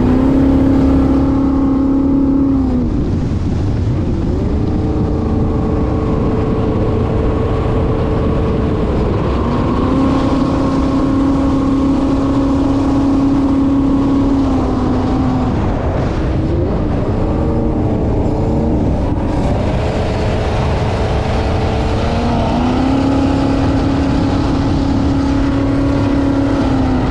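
Jet boat's junkyard 5.3-litre LS V8 running on open 8-into-1 headers, over the rush of water. The engine note holds steady, drops about three seconds in, climbs back, drops again past the middle and climbs once more near the end, as the throttle comes off and goes back on.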